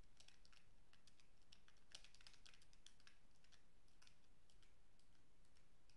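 Faint typing on a computer keyboard: an irregular run of quick keystrokes, busiest about two seconds in.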